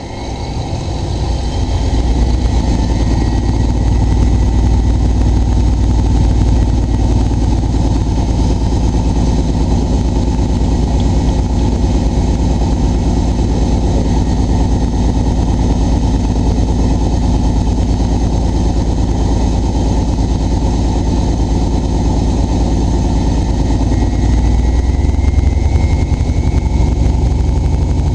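Miele Novotronic W923 washing machine running. Its drum motor starts up about a second in, then runs steadily with an even, rapid rhythm and a faint whine.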